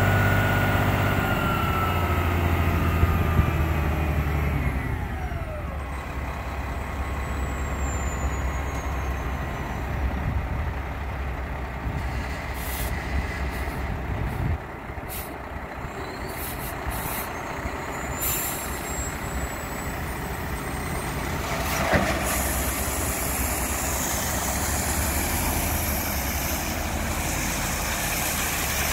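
Dump truck's diesel engine running, its pitch falling over the first few seconds as it slows, then running steadily while the dump body is raised. About two-thirds through there is a single sharp clunk, and a steady rushing of gravel pouring out of the tipped body then builds.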